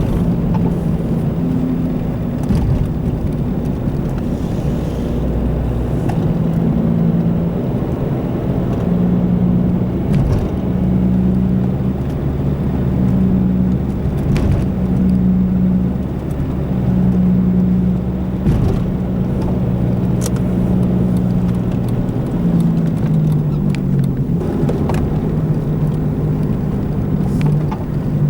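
Car driving with a bad wheel bearing: a low, steady drone over road rumble, its pitch wavering slightly, with a few short thumps from the road.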